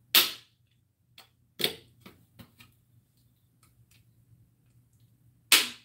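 Handheld jewelry hole punch snapping through the corners of a thin sign: three sharp, loud clicks, about a second in, near two seconds and near the end, with a few softer clicks and knocks between as the sign is turned.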